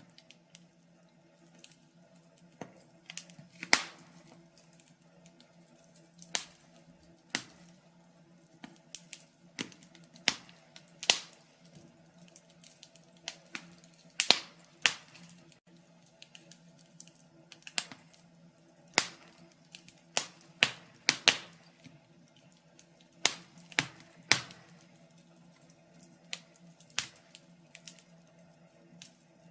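Log fire in a fireplace crackling: irregular sharp pops and snaps, roughly one or two a second, over a low steady hum.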